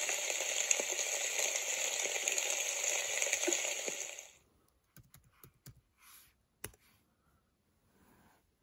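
A steady, rain-like hiss that cuts off sharply about four seconds in, then a few scattered light clicks of a laptop's keys.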